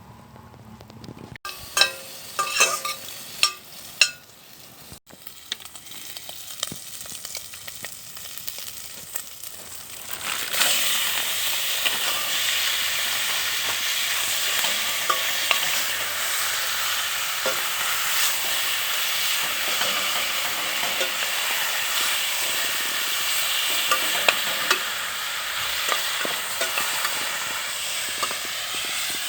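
A few sharp knocks of utensils, then, about a third of the way in, food hits a hot pan and starts sizzling. The frying goes on as a steady sizzle, with small crackles, until the end; it is most likely the seasoned chicken for the lasagna filling.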